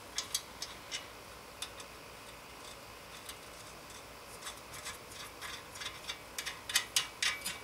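Light metallic ticks and clicks of a castle nut being turned by hand onto the stud of an outer tie rod end, sparse at first and coming quicker and louder near the end.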